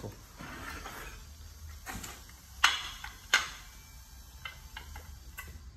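Quarry tiles clacking as they are handled out of the box and set down into place: a few sharp knocks around the middle, then lighter ticks.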